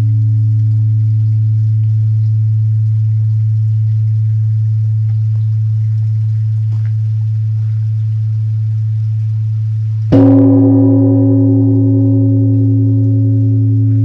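Large Korean bronze temple bell (beomjong). It hums low as the last stroke dies away, then is struck again about ten seconds in by its wooden log striker. It rings out deep and loud, with higher overtones that slowly fade over the low hum.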